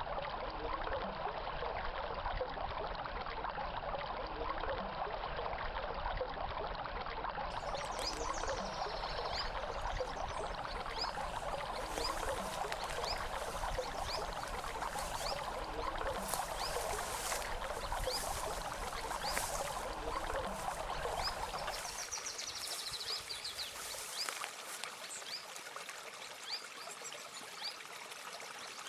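A small stream trickling and splashing steadily, with short high chirps over it. About three-quarters of the way through the water sound becomes thinner and quieter.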